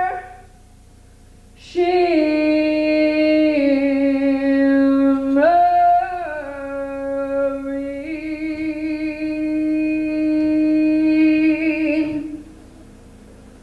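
A woman singing long, wordless held notes, stepping between a few pitches, with the last long note ending about twelve seconds in.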